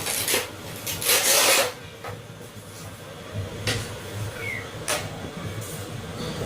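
Packaging being handled and opened by hand: a loud scraping rub of cardboard or plastic about a second in, with scattered taps and clicks after it.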